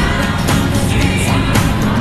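Background music with a steady beat and sung vocals.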